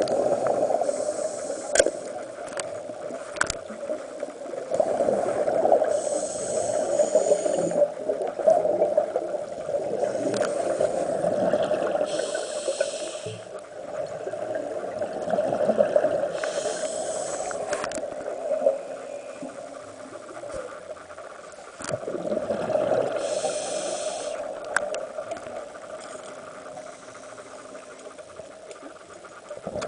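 Underwater sound of a reef dive heard through the camera's waterproof housing: a steady low hum with scattered sharp clicks, and a hissing rush of bubbles every five seconds or so.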